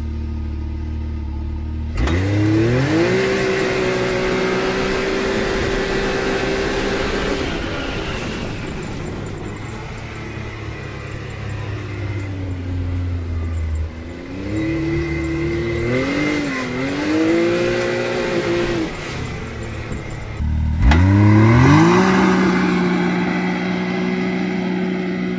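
Can-Am Maverick X3 Turbo's turbocharged three-cylinder engine launching at full throttle from a standstill in four-wheel drive: it idles, then about two seconds in the revs shoot up and hold at a steady high pitch as the belt drive pulls. The revs ease off after about eight seconds and climb again, and after an abrupt break near the end the engine revs up fast once more and holds.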